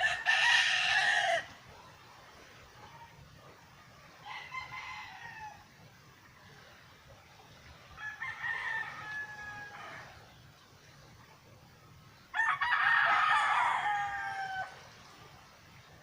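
Roosters crowing: a loud crow right at the start, two fainter crows around four and eight seconds in, and another loud crow about twelve seconds in.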